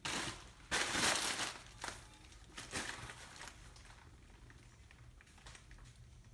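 Rustling, crinkling handling noises in a few short bursts over the first three seconds, then only a faint low room hum.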